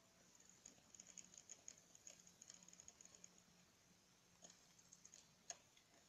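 Very faint, quick clicking and ticking from a portable DVD player's disc drive seeking while it loads the disc. The clicks are densest in the first half, with a few more and one sharper click about five and a half seconds in, over a faint low hum.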